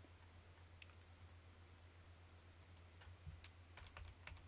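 Faint computer keyboard clicks as a terminal command is typed: a couple of scattered keystrokes, then a short run of taps near the end, over a low steady hum.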